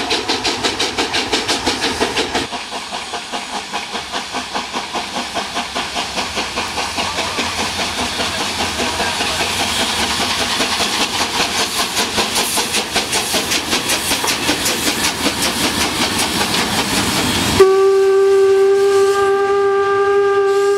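Steam locomotive running under steam, its exhaust beats coming in a quick, even rhythm. Near the end its steam whistle sounds one steady, loud note that holds to the end.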